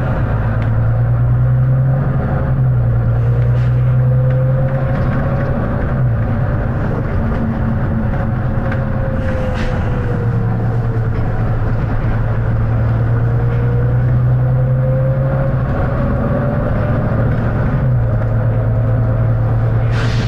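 Volvo B9TL double-decker bus's six-cylinder diesel engine running under way. The engine note steps between a lower and a higher pitch several times, and a fainter whine slowly rises and falls.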